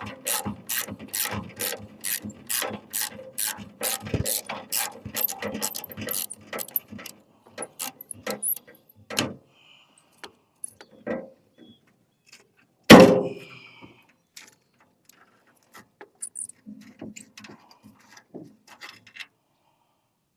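Ratchet wrench clicking steadily, about three clicks a second, as a bolt on the wheelbarrow handle is turned, thinning out to scattered clicks after about seven seconds. One loud knock a little past the middle.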